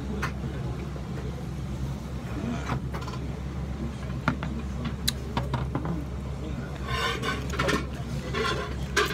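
Restaurant counter ambience: a steady low hum and background voices, with scattered sharp clinks and knocks of beer glasses and dishes.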